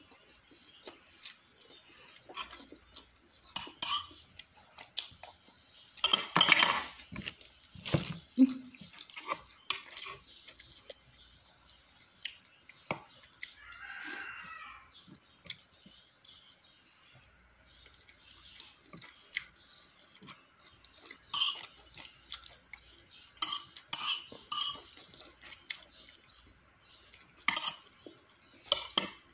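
Spoon and fork clinking and scraping on ceramic plates while eating, as a run of irregular sharp clicks and knocks, heaviest a quarter of the way in and again near the end. A brief wavering high sound about halfway through.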